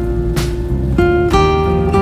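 Background music led by guitar, its notes and chords changing every half second or so.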